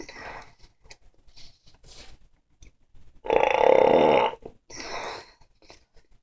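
A man's loud belch, lasting about a second, starting about three seconds in, with soft mouth and breathing sounds before it and a short breathy sound after.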